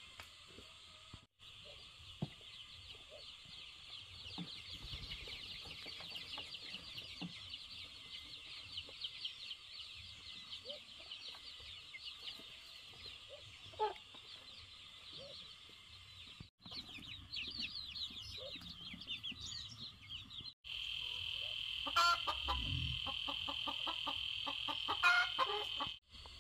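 Chickens clucking, over a steady high-pitched rapid trilling or buzzing in the background. The sound cuts off abruptly several times between short segments.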